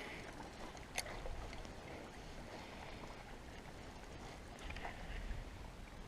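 Faint low noise of a canoe on still water, with one sharp click about a second in.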